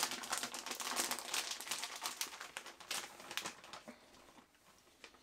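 Plastic bag of grated cheese crinkling and rustling as a hand rummages in it for a handful, dying away about four seconds in.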